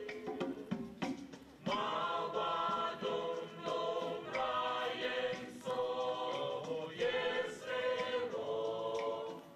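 Mixed choir of men and women singing in sustained phrases, with a brief pause about a second in before the voices come back in together.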